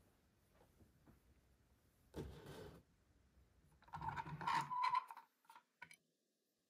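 Handling noise from a diecast model car on a tabletop: a short scuff about two seconds in, then a louder scrape with a squeak and a few small clicks as the model is turned around on the surface.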